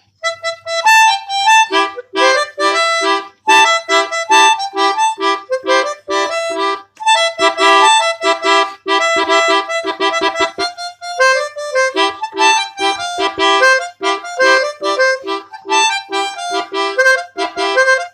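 Basuri multi-tone telolet bus horn playing a tune: a quick run of short notes at changing pitches in a bouncing rhythm, with a brief pause about eleven seconds in.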